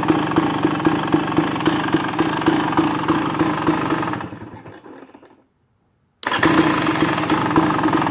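2023 KTM 300XC's single-cylinder two-stroke engine idling with a steady popping beat, shut off about four seconds in and dying away to silence, then abruptly running again about two seconds later on the electric start.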